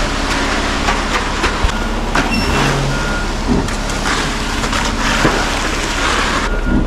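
Concrete mixer truck's diesel engine running under a steady rushing noise, with a few short high beeps now and then.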